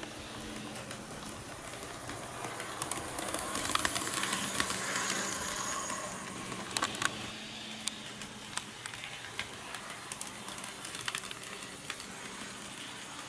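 KATO HO-gauge EF81 electric locomotive model running along the track, its motor humming steadily and its wheels clicking sharply over rail joints and turnout. The running noise swells as it passes close, from about two and a half to seven seconds in.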